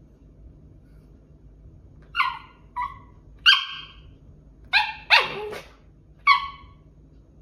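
A small pet dog gives six short, high-pitched yips and barks, starting about two seconds in, as it begs for a treat.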